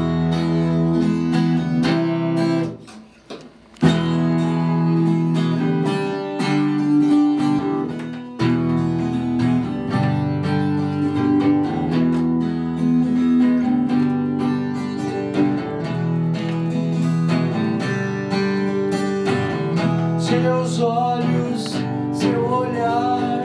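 Acoustic guitar strummed in chords, breaking off briefly about three seconds in and then playing on steadily.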